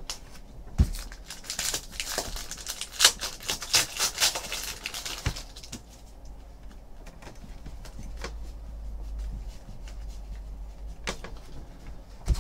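Hands sorting and flipping through a stack of trading cards, with quick rustles and snaps of card stock. The handling is busiest in the first few seconds, goes quieter in the middle, and picks up again with a few clicks near the end.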